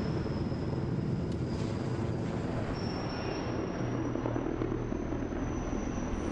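Steady low rumble of outdoor background noise, with a faint steady high whine above it.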